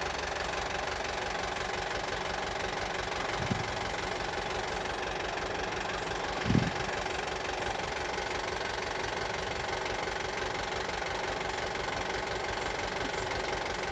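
Engine running steadily at idle, with two short low thumps, one about three seconds in and another a few seconds later.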